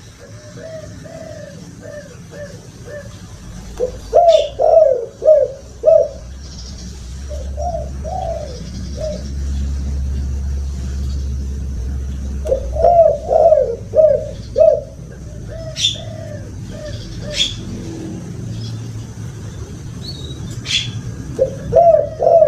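Spotted doves cooing in repeated phrases of several quick, rhythmic notes, about five phrases in all. Short sharp high chirps from another bird fall between the phrases, and a low rumble rises in the middle.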